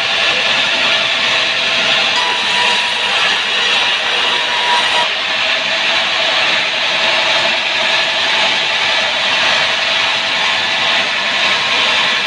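Sawmill saw cutting through a sengon (albizia) log with a loud, steady sawing noise. A brighter, higher hiss joins in for a few seconds, starting about two seconds in.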